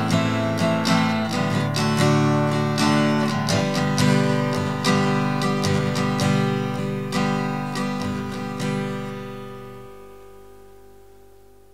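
Acoustic guitar strummed in a closing instrumental passage; the last strum comes about nine seconds in and the chord rings out, fading away.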